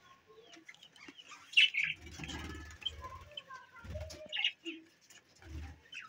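Budgerigars chirping in short scattered bursts, the loudest about one and a half seconds in, with dull wing flutters as birds fly about.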